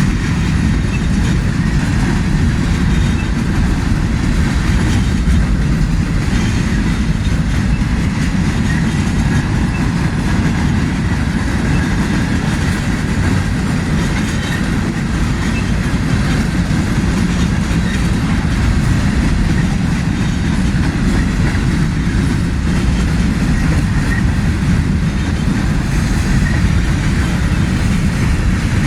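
Slow-moving mixed manifest freight train rolling past at restricted speed: a steady noise of wheels on rail.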